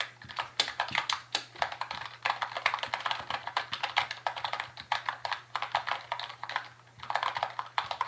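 Fast, continuous typing on a Red Thunder 60% membrane keyboard that has been tape- and foam-modded, its keys clicking in quick runs with a brief pause near the end.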